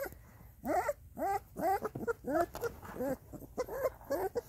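Young puppies whimpering: a string of short, high cries, about three a second, each bending in pitch.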